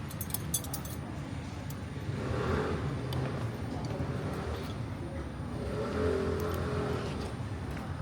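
Town-square street ambience with motor vehicles passing: a steady low rumble that swells twice, about two and a half and six seconds in. A few light clinks in the first second.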